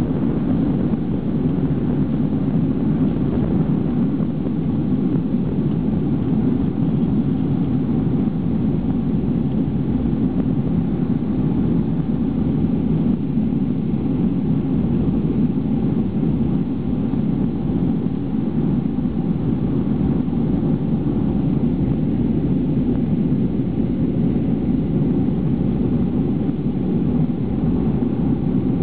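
Boeing 737-500's CFM56-3 jet engines at takeoff power, heard from inside the cabin over the wing: a steady, loud low rumble through the end of the takeoff run, liftoff and initial climb.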